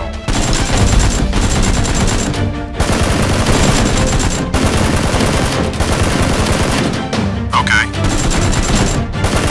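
Rapid automatic gunfire sound effects dubbed over Nerf foam-dart blasters, firing without letup over background music.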